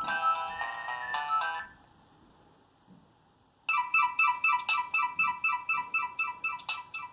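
Nokia 6225 phone playing its preloaded ringtones: one melody ends about a second and a half in, and after a two-second pause the next ringtone starts, a fast run of short, bright repeated notes.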